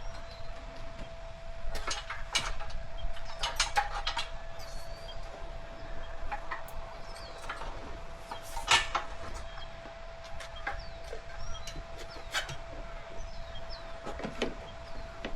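Irregular clicks and knocks of metal tools and wheel parts being handled while a dirt bike tire is worked onto its rim, the loudest knock about nine seconds in, over a steady faint hum.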